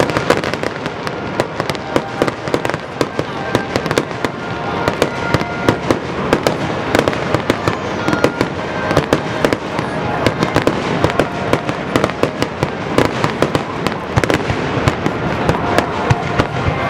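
Fireworks display going off in a dense, continuous barrage of crackles and bangs, many reports a second.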